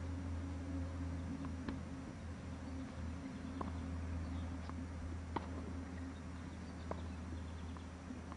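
Tennis balls being struck on a hard court at a distance: a handful of sharp pocks, irregularly spaced a second or so apart, over a steady low hum.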